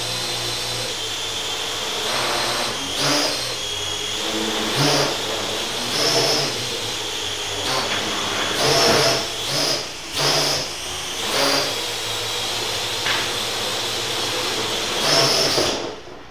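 Parrot AR.Drone 2.0 quadcopter's four rotors whirring in flight. The buzz swells and eases every second or so as the throttle is worked by hand, because the firmware has no automatic height hold yet. The whir drops away just at the end.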